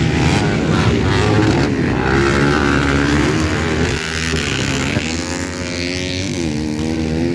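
250cc four-stroke motocross bikes running on the track, their engine pitch rising and falling as the riders open and close the throttle.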